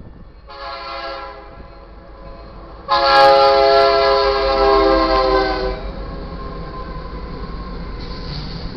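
A BNSF diesel freight locomotive's air horn sounds a warning for the grade crossing: a short blast, then a longer, louder blast of about three seconds, several notes sounding at once. After it the rumble of the locomotive and train grows as the engine reaches the crossing near the end.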